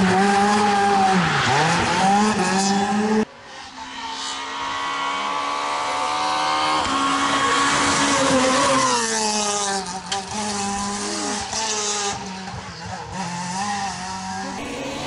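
Rally car engine at full throttle, revving up and shifting gear as it passes along a stage. The sound jumps abruptly about three seconds in, and again later, where one pass cuts to another.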